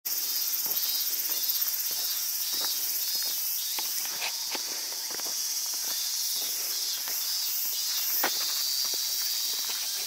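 Steady high-pitched chorus of insects droning in the trees, with footsteps at a walking pace on a paved path.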